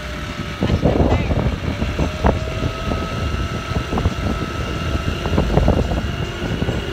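Motor scooter engine running at a steady speed with a thin, steady whine while riding. Wind buffets the microphone, starting about half a second in.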